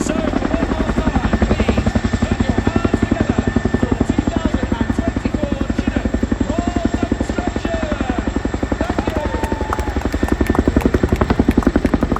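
Boeing Chinook HC.6 tandem-rotor helicopter in flight, its twin rotors beating in a rapid, even pulse with a steady high whine over it, growing a little louder near the end.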